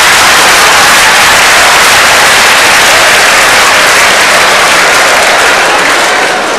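Live audience laughing and applauding at a punchline, loud and steady, easing off near the end.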